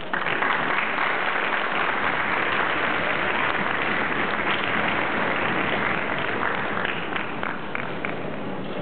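Audience applauding, starting all at once and slowly thinning out, with single claps standing out near the end.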